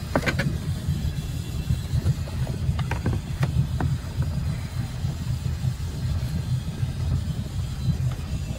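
Steady low rumble of the boat's engine idling, with a few short knocks as the tow rope and wakeboard are handled about three seconds in.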